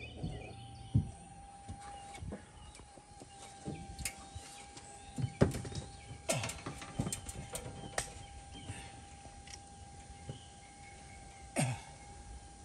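Scattered clicks and knocks of metal mobile home gutter sections being handled and slid together, with a cluster of quick clicks in the middle. A faint steady hum runs underneath.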